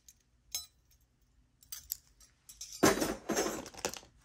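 Jewelry pieces clinking and jingling as they are handled: one sharp click about half a second in, a few light ticks, then about a second of dense jingling near the end.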